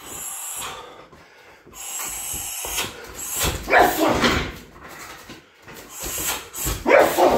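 Kicks and knees landing on a heavy punching bag. A loud cluster of hits comes about four seconds in, and another near the end.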